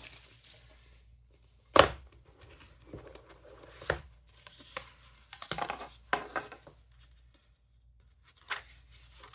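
Handling an unboxed notebook and its packaging: a sharp knock about two seconds in, a lighter one near four seconds, and short bursts of packaging rustling and tearing.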